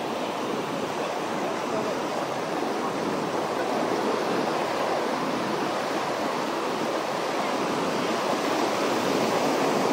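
Ocean surf washing onto the beach in a steady rush, growing a little louder in the second half.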